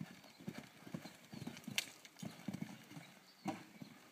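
A horse's hooves cantering on a sand arena: a steady run of dull thuds, with one sharp click about two seconds in.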